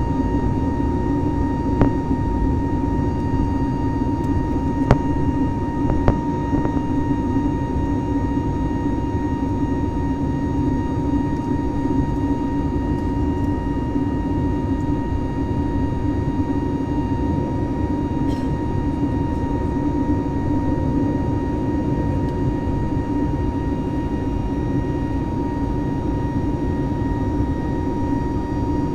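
Steady jet engine drone and rushing air heard inside the cabin of an Airbus A320, with a constant whine running through it and a few faint clicks.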